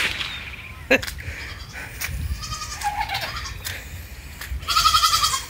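Goats bleating: a couple of short bleats, then a longer, louder bleat near the end. A single sharp knock sounds about a second in.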